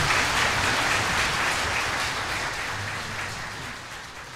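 Audience applauding, the clapping fading out steadily toward the end.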